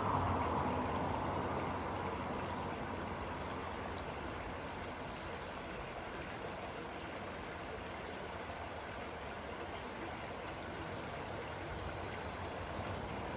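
Shallow rocky creek running: a steady wash of flowing water, a little louder in the first couple of seconds.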